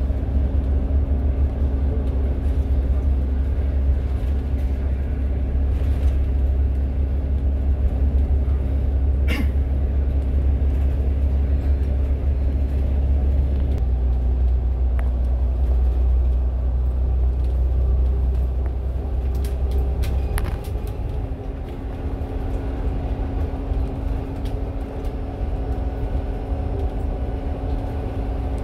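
Steady engine drone and road rumble heard from inside a moving bus. The deep rumble eases a little about two-thirds of the way through, and there is a single brief click about a third of the way in.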